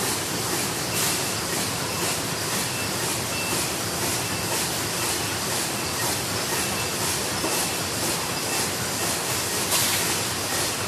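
Paper bowl-forming machines and a packing machine running together on a production floor: a dense, steady mechanical clatter and hiss with a faint regular ticking from the machine cycles.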